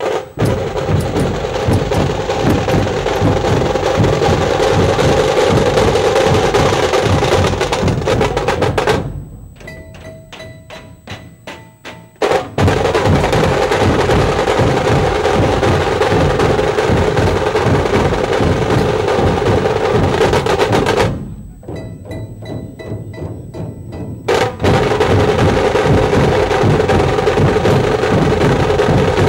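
A Maharashtrian dhol troupe beating many large barrel-shaped dhol drums in a fast, dense, loud rhythm. Twice, about nine seconds in and again about twenty-one seconds in, the full band drops out for a few seconds to a lighter, sparser pattern before crashing back in together.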